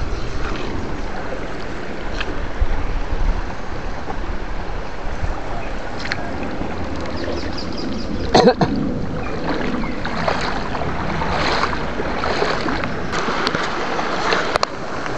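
Water sloshing and splashing with wind rumbling on the microphone, and one sharp knock about eight and a half seconds in.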